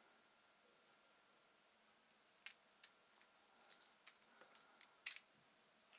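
Small metal parts clicking and clinking against each other, as when handling miniature Allen keys and screws on a small metal lathe: about eight short, sharp clicks scattered through the second half, the loudest near the middle and near the end.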